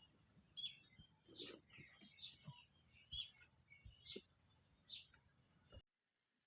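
Birds chirping, a string of short high calls one after another, with a few soft low knocks among them. The sound cuts off abruptly near the end.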